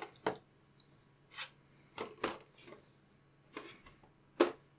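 Hands fitting the black top cover back onto an Nvidia Jetson AGX developer kit: a series of short clicks, knocks and scrapes at uneven intervals. The sharpest knocks come at the start and near the end.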